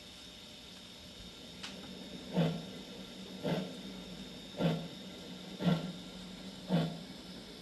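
Steam-locomotive sound effects from a model-railway sound box: a steady hiss of steam, a single click, then slow, evenly spaced exhaust chuffs about once a second, the sound of the engine starting to pull away.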